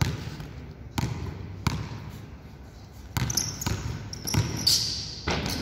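Basketball dribbled on an indoor court floor: about seven separate bounces, coming closer together in the second half as the player drives to the basket. Sharp sneaker squeaks on the court near the end.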